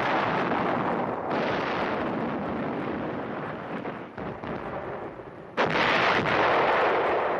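Battle explosions on an old film soundtrack: a heavy blast right at the start that rumbles and slowly dies away, then a second heavy blast about five and a half seconds in.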